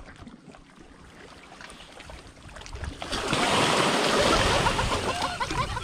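Seawater washing and splashing, swelling up about three seconds in and easing off near the end, after a quieter stretch with faint clicks.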